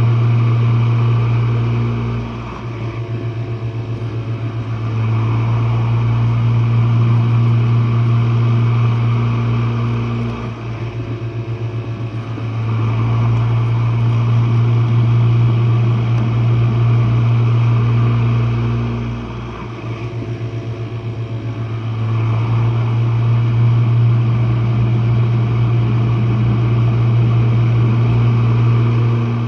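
Jenn-Air dishwasher's wash pump motor running loudly with a steady low hum. The hum swells and drops in a repeating cycle: loud for five to seven seconds, then softer for two or three seconds with a rapid flutter.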